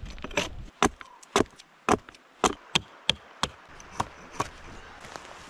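Hatchet chopping a dead spruce log, knocking off branch stubs. About ten sharp strikes in quick, irregular succession, stopping a little before the end.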